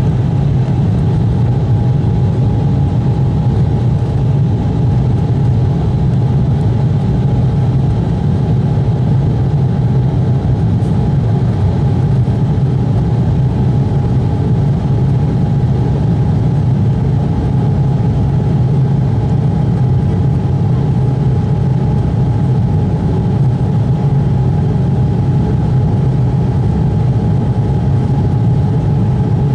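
Embraer E190's twin GE CF34-10E turbofan engines heard from inside the cabin: a steady, loud low hum with a thin, steady whine above it, at constant thrust through the takeoff and climb.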